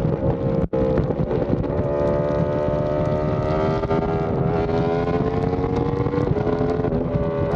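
Yamaha R1M's crossplane inline-four, fitted with an SC Project exhaust, running hard at highway speed, its pitch climbing steadily under acceleration, with wind noise on the microphone. The sound cuts out for an instant under a second in.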